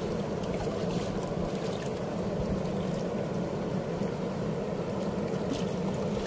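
Steady rushing of a fast river current around a small wooden boat, a low, even rumble of water with no breaks.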